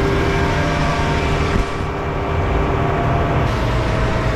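Heavy diesel engines of a concrete pump and mixer truck running steadily, a low rumble with a steady whine over it. The sound dips briefly about one and a half seconds in.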